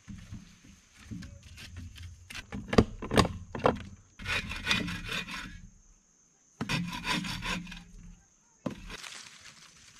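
Wooden log poles being worked into a pole workbench: a run of sharp wood-on-wood knocks a couple of seconds in, then longer stretches of poles scraping and rubbing across one another.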